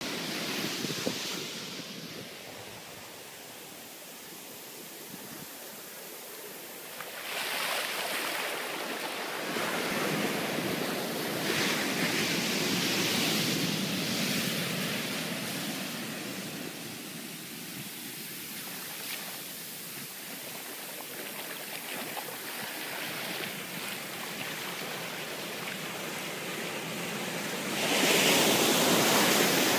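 Sea surf breaking and washing up a beach, swelling several times and loudest near the end, with some wind buffeting the microphone.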